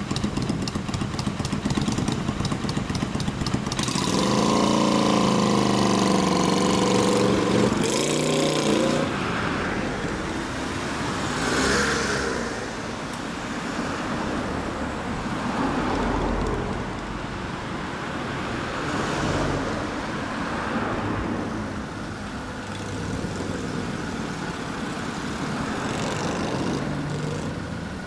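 Kawasaki Vulcan 400 Classic V-twin with a non-stock muffler running at idle, then revving up louder as the bike pulls away about four seconds in, for about five seconds. After that, steady road traffic noise with passing cars.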